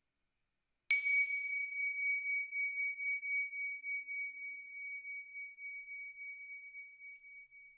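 A small metal bell or chime struck once, ringing one clear high tone that wavers in loudness as it slowly fades.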